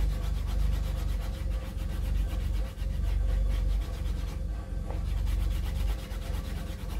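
Wooden edge slicker, a broom-handle burnisher with a filed groove, rubbed in rapid rhythmic back-and-forth strokes along the painted leather edge of a knife sheath to burnish and finish it.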